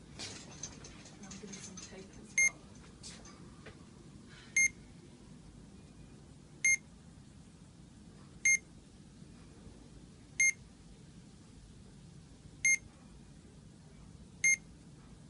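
CADD-Legacy Duodopa infusion pump beeping: seven short, high beeps, one about every two seconds, as it steps through its settings screens after being switched on.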